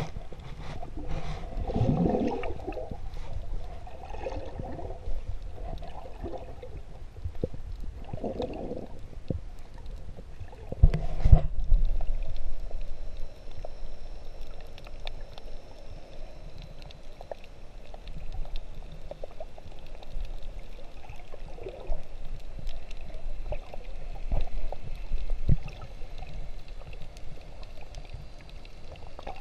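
Water moving around an underwater GoPro as a snorkeler swims: a low rumble with gurgling swells, and a louder rush about eleven seconds in.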